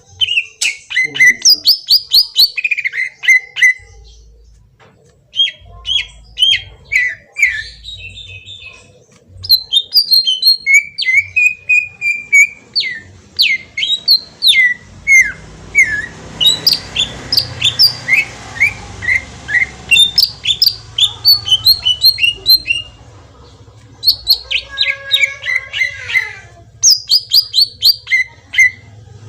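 Green leafbird (cucak ijo) singing a fast, loud song of sharp whistled and chirping notes, many dropping in pitch, in bursts with short pauses between them. This is the kind of song used as a lure to set caged leafbirds singing.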